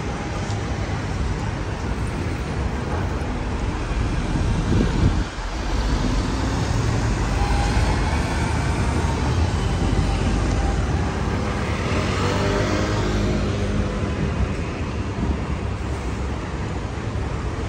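City street traffic: steady road noise from passing vehicles, with one engine passing close about twelve seconds in.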